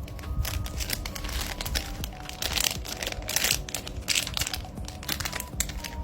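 Plastic packaging crinkling and rustling in irregular bursts as squishy toys are handled, loudest around the middle, with faint music underneath.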